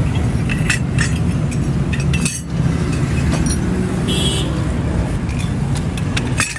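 Light metallic clinks of cast metal water pump impellers being handled and set down on a concrete slab. Beneath them runs a steady low rumble of machinery or traffic.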